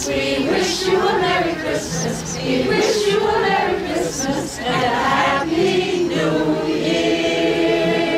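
A group of carolers singing a Christmas carol together, their voices moving in chords and settling on a long held note near the end.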